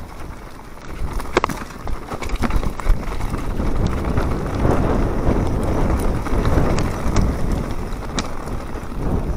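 Wind buffeting the microphone over the rumble of mountain bike tyres on a dirt and gravel trail during a fast descent. A few sharp clicks and rattles from the bike come over bumps.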